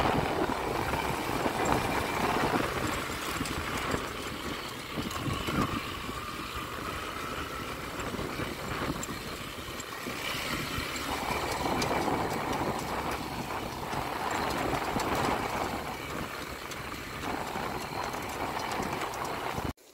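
Motorcycle riding along a rough, potholed dirt track, its engine running under a steady rush of wind and road noise. The sound cuts off suddenly near the end.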